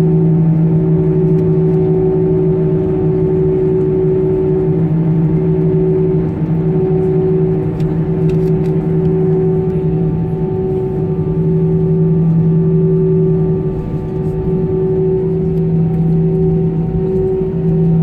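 Airbus A320 cabin noise while taxiing: the engines at idle give a steady hum with two strong steady tones, one low and one a little higher, unchanging throughout.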